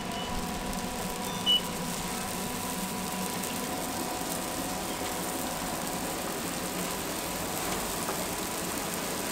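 Hot oil in a deep-fry tray sizzling steadily as sticks of youtiao (Chinese fried dough) fry in it, with a faint steady hum. A short high-pitched beep about a second and a half in.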